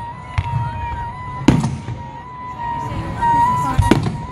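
Aerial firework shells bursting: three sharp booms, the loudest about a second and a half in, the last near the end.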